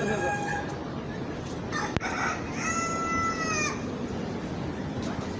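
A rooster crowing: one held, level-pitched crow of about a second near the middle, with shorter fowl calls around it and a single sharp click just before the crow, over steady background noise.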